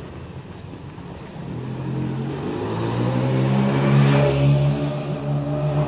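A motor vehicle passing close by on the street. Its engine hum builds up, is loudest with a rush of tyre and road noise about four seconds in, then fades as it moves away.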